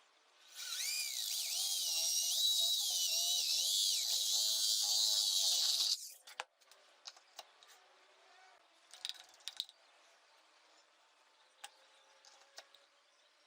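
Electric drill running for about five and a half seconds, its high whine wavering up and down in pitch, then stopping abruptly. A few light clicks and taps follow.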